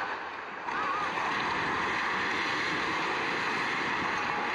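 Multi-storey concrete building collapsing during demolition: a sudden, steady rushing noise of falling concrete and rubble begins about a second in.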